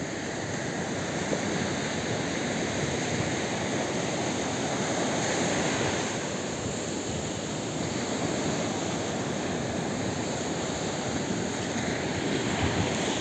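Surf washing onto a beach in a steady, continuous rush.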